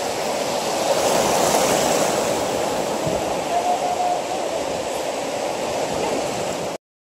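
Shallow sea water washing over sand, a steady rushing wash that cuts off abruptly near the end.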